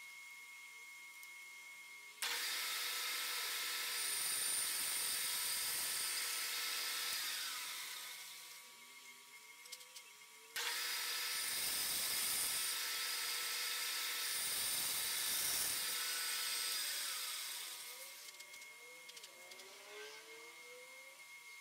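Vertical bandsaw running and cutting a thick block of plastic, in two runs of about six seconds each. Each run comes in suddenly and dies away over a second or two.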